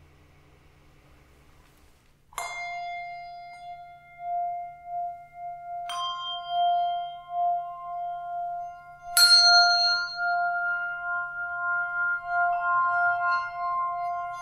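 Handbells rung one note at a time: four notes about three seconds apart, starting a couple of seconds in. Each is left ringing with a long, slightly wavering tone, so the notes stack up into a sustained chord.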